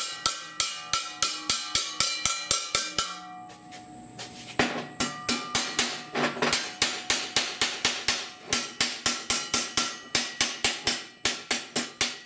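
Hand hammer striking a steel sheet-metal pod on a forming jig, about four ringing metallic blows a second, pausing briefly about a third of the way through, then continuing. The blows are forming the pod's flange over the jig.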